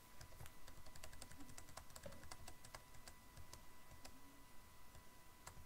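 Faint computer keyboard keys clicking, tapped in quick succession several times a second, as text is deleted keystroke by keystroke; the taps thin out in the second half.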